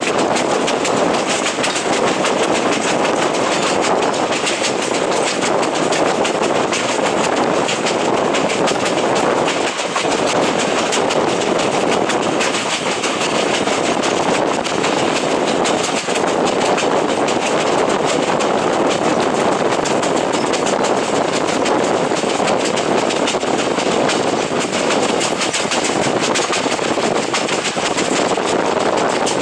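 Steady rumble and clatter of a PeruRail train's wheels running on the rails, heard from on board the moving train.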